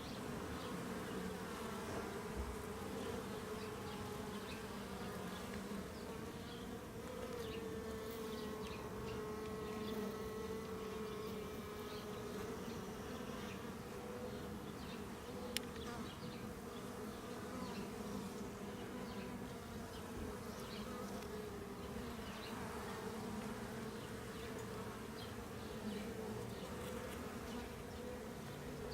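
Honeybees buzzing around an open hive during an inspection: a steady hum of many bees with a slightly wavering pitch, and one short click about halfway through.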